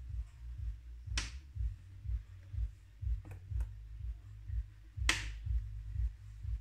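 Buttons on a Saeco Intelia espresso machine's control panel being pressed: two sharp clicks about four seconds apart, with two fainter clicks between them. Under them runs a low thudding about twice a second.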